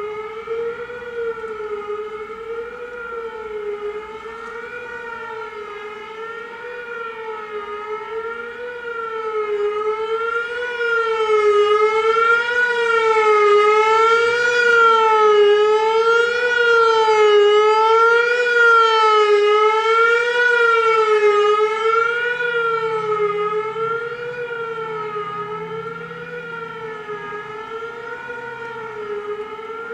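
Whelen WPS-3000 electronic outdoor warning siren sounding the Attack signal: a steady rising-and-falling wail that cycles about once every one and a half seconds. It swells louder from about ten seconds in and fades again after about twenty-two seconds as the rotating speaker array turns toward and then away.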